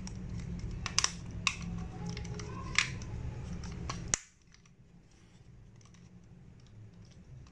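Plastic clicks and snaps as the parts of a Tobot Jackhammer transforming toy are folded and pressed into place by hand: a few sharp clicks in the first three seconds. Under them runs a low hum that cuts off about four seconds in.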